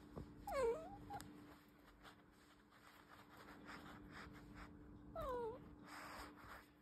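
Orange tabby domestic cat meowing twice, about five seconds apart, each meow short and falling in pitch.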